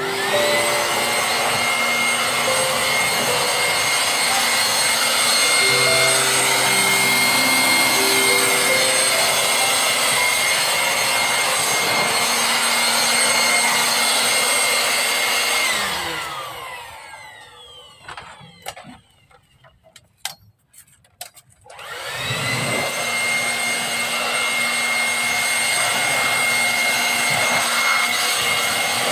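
Corded electric leaf blower running with a steady high whine while clearing fallen leaves. It is switched off about 16 s in, its whine falling as the motor spins down, with a few clicks in the pause. It starts up again about 22 s in and spins down once more near the end.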